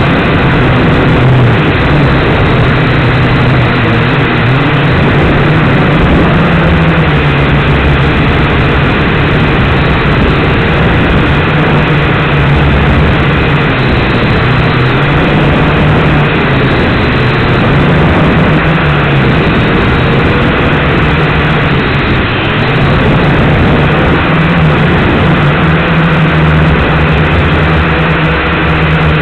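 Micro quadcopter's electric motors and propellers buzzing loudly, their pitch drifting up and down with throttle changes over a dense rushing noise, heard through the quad's own onboard camera.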